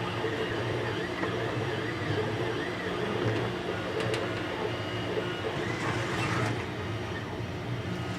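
3D printer running, its stepper motors whining up and down in pitch as the print head moves back and forth over a steady mechanical hum.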